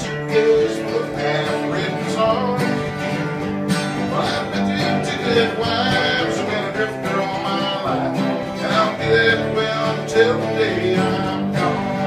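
Acoustic guitars strummed together in a steady country-style band groove, an instrumental break between sung verses.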